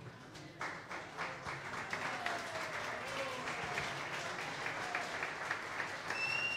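Audience applauding, starting about half a second in, with a few voices heard among the clapping.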